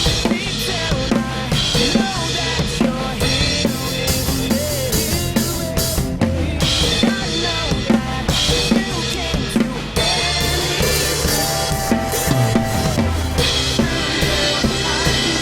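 Drum kit played in a full groove with kick, snare and cymbals, along with a recorded song, as picked up by the Insta360 GO Ultra's built-in microphone during a sound test.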